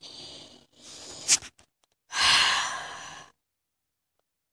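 A person's breathy exhales close to the microphone, the last and loudest a long sigh about two seconds in, with one short sharp click between them. The sound then cuts off suddenly.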